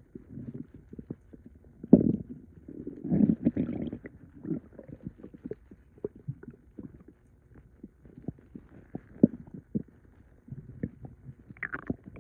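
Stomach and bowel gurgling after drinking a gallon of liquid: irregular low gurgles, pops and clicks of fluid and gas moving through the gut, with stronger rumbling swells about two and three to four seconds in and a brief higher squeak near the end.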